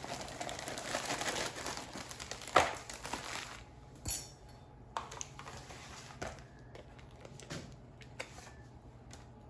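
Knife spreading cream cheese over a flour tortilla: a scraping, smearing rustle for the first few seconds with a sharp tap about two and a half seconds in, then scattered light taps of the knife against the plate.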